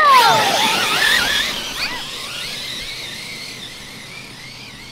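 Several electric RC monster trucks setting off at full throttle across grass: a burst of motor whine and tyre hiss, loudest at the start and fading steadily as the trucks pull away, with a wavering whine that lingers.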